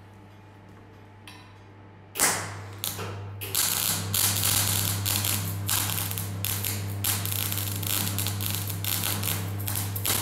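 CO2 (MIG/MAG) welder arc crackling and sputtering in short runs with brief gaps, starting about two seconds in, over a steady low hum.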